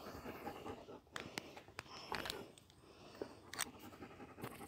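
Faint rustling and scraping with scattered short clicks: handling noise from a phone whose lens and microphone are covered.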